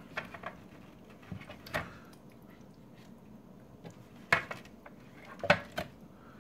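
A ladle knocking against a glass mixing bowl as it scoops up vegetable juice: a handful of separate sharp clinks, the loudest about two, four and five and a half seconds in.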